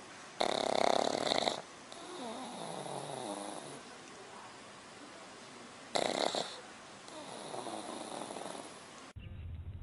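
Black pug snoring twice: each time a loud, rough breath lasting about a second, followed by a softer wavering, pitched sound for a couple of seconds. Near the end the sound cuts off abruptly to a low hum.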